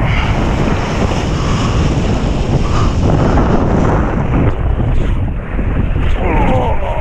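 Wind buffeting the action-camera microphone over the rush and splash of water under a kitesurfing surfboard planing through chop.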